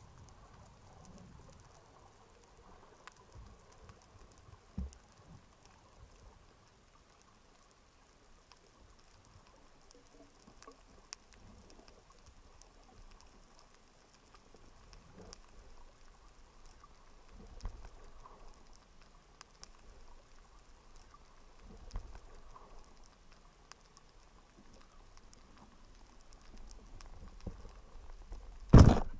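Underwater sound: faint scattered clicking and crackling, then near the end one loud, sharp bang of a speargun shot.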